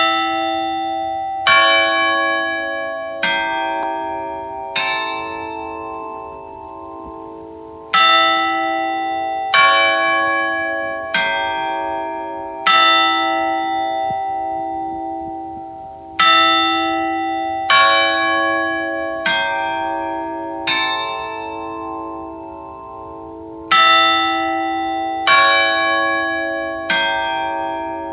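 Tower bells chiming a four-note tune: strokes about a second and a half apart in groups of four, with a pause between groups, each stroke ringing on under the next. This is the hour chime that comes before the clock strikes eleven.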